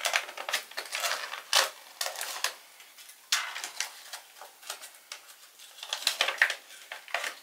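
An MRE kippered beef snack pouch being torn open and crinkled by hand: irregular crackling rustles of stiff laminated packaging, with a short lull near the middle.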